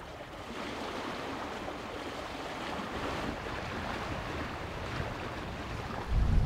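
Sea water washing steadily along a sailboat's hull as it sails slowly in light wind, with some wind on the microphone. A louder low sound cuts in near the end.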